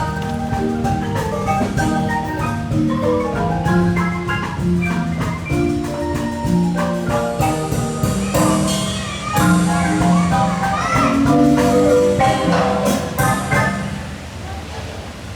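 Guatemalan marimba playing a melody over low bass notes, the held notes sounding as quick rolls of the mallets. The music grows quieter near the end.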